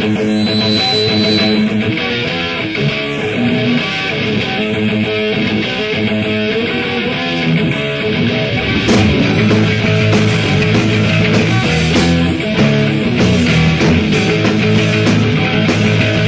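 Rock band recording playing at full volume: electric guitar leading over drums.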